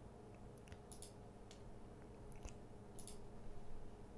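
Several faint, sharp computer mouse clicks, spaced irregularly about half a second to a second apart, over a low steady electrical hum.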